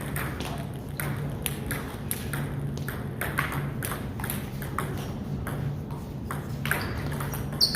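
A series of short sharp taps at uneven intervals, roughly two a second, over a steady low hum.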